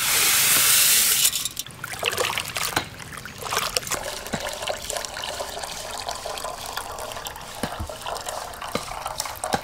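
Dry toor dal poured from a metal bowl into a metal bucket of water, a loud rush of grains for about a second. Then rinse water trickles from the tilted bucket of dal into a large metal pot, with small clicks along the way.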